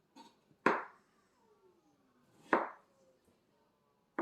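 Knife chopping through canary melon onto a cutting board: two sharp chops about two seconds apart, cutting off the ends of the melon pieces.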